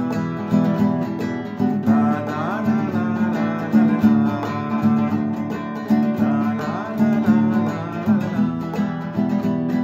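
A man singing a Sinhala song while strumming chords on a nylon-string classical guitar.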